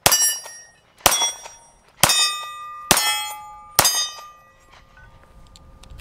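Five pistol shots from a Taurus GX4XL 9mm, about one a second, each followed by the ringing clang of a struck steel target that fades away. The shooting stops about four seconds in and the last ring dies out.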